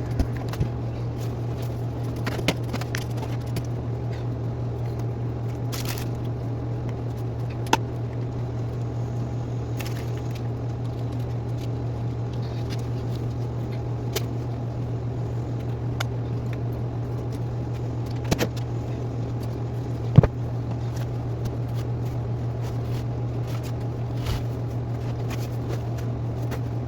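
Scattered light clicks and clatters of small items and toys being picked up with a reacher-grabber, over a steady low hum, the hum dropping away right at the end.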